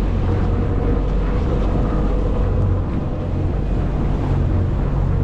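Charter fishing boat's engine running with a steady low hum, with wind buffeting the microphone.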